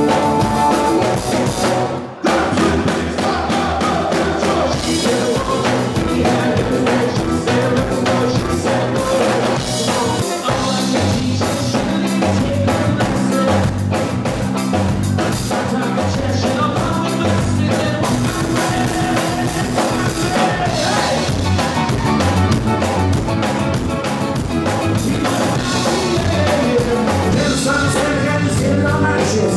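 Live band music: electric guitar, bass guitar and drum kit, with a man singing. The music drops out briefly about two seconds in, then carries on.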